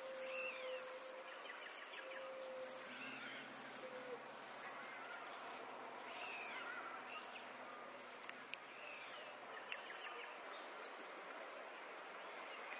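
Natural forest ambience of wild animal and bird calls: a high-pitched pulse repeats about once a second and stops about ten seconds in. A low steady note is held for about a second a few times in the first four seconds, and short falling chirps come in here and there.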